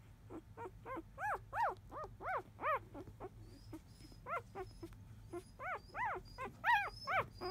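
Four-day-old Labrador Retriever puppies squeaking and whining in short cries that rise and fall in pitch. A quick run of about six cries comes in the first few seconds, two more follow, and another run of about five comes near the end.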